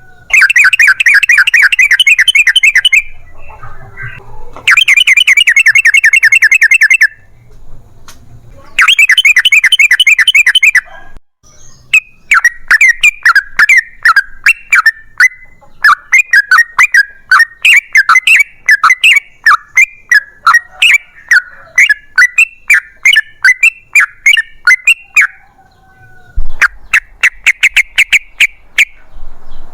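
Yellow-vented bulbul song. It is loud, with rapid rolling trills in bursts of about two seconds. They alternate with a long run of separate chirping notes in the middle, and one more trill comes near the end.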